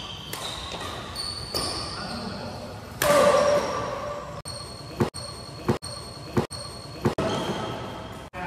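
Badminton doubles rally in an echoing sports hall: rackets striking the shuttlecock and sneakers squeaking on the court. A voice calls out about three seconds in, then four sharp racket hits come in quick succession, each about 0.7 seconds apart.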